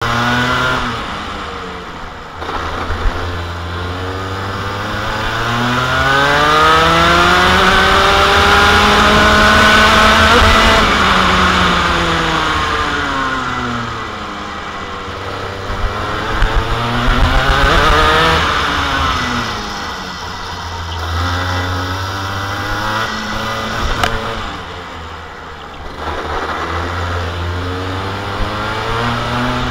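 Rotax 125cc two-stroke kart engine at racing speed, its pitch climbing as it revs out and falling back as it slows, several times over, with wind and tyre noise beneath.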